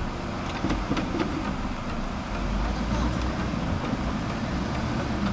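Off-road 4x4's engine running under load as it works over rough ground, with a few short knocks in the first second or so.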